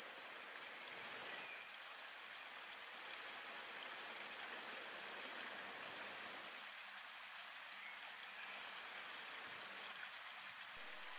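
Faint steady hiss with no distinct sounds in it.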